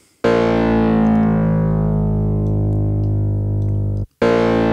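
Distorted drum-and-bass 'foghorn' bass note from a Native Instruments Massive patch, a Scrapyard-wavetable tone through the scream low-pass filter with shaper distortion. Each note opens with a burst of harmonics that fades out as the envelope closes the filter. One long note of about four seconds, then a second begins just after it.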